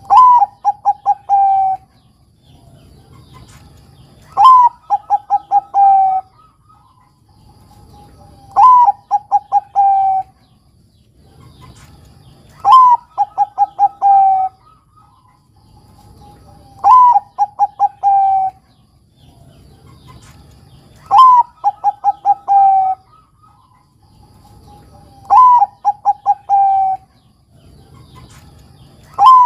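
Zebra dove of the Bangkok perkutut type cooing its song over and over, one phrase about every four seconds. Each phrase is a soft lead-in note, a higher opening note, a quick stutter of about five short notes, then a longer end note that drops a little.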